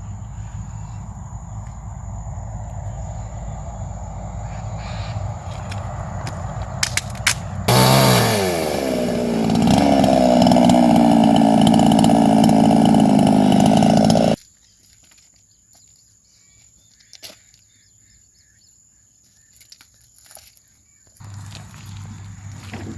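Small petrol engine running: a steady low hum, then a much louder engine note about eight seconds in that drops in pitch and holds steady before cutting off suddenly about fourteen seconds in. The lower hum returns near the end.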